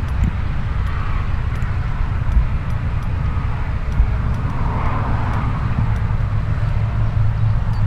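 Light propeller aircraft's engine running steadily, a low drone with a rush of hiss that swells about five seconds in.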